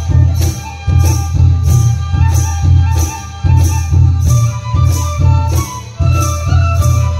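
Live Bodo folk music: low drums beat a steady rhythm with a bright metallic clash on each beat, under a high, held melody line.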